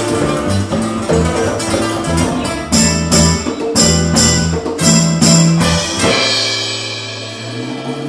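Live band of nylon-string acoustic guitars, electric bass and drum kit playing Latin-style music. About three seconds in, the band plays a run of about six accented hits with cymbal crashes, then stops on a chord that rings out.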